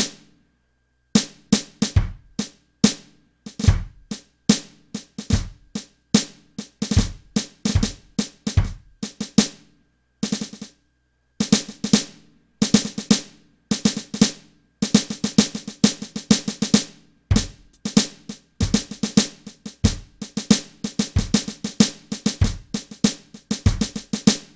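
Electronic drum kit recorded by line, played in busy fills of snare and tom strikes over bass-drum kicks, with dead silence in two short pauses. It stops suddenly near the end.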